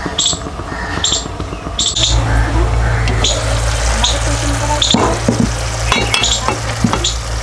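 Wooden spatula stirring cucumber sabzi in a nonstick kadai on a gas stove, with gentle sizzling and a few light knocks of the spatula against the pan past the middle. A steady low hum sets in about two seconds in.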